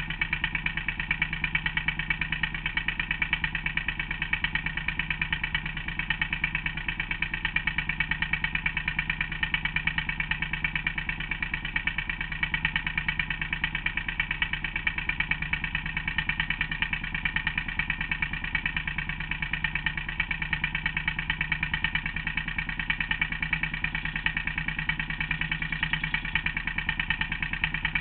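Vehicle engine idling steadily with an even beat of pulses, holding the same pitch throughout, while its clutch is being tested.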